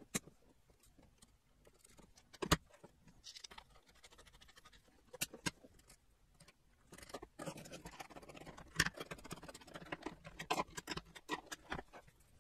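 Hands handling a subwoofer amplifier circuit board on a workbench: scattered light clicks and knocks, with a stretch of rustling in the second half.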